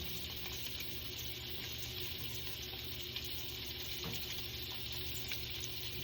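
Sausage and chopped pepper sizzling steadily in a frying pan.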